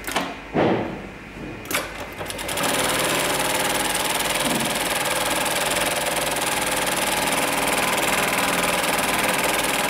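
A few knocks and clicks during the first two and a half seconds, the loudest about half a second in, then the Hightex MLK500-2516 automatic pattern sewing machine starts and sews steadily at speed, stitching webbing clamped in its template.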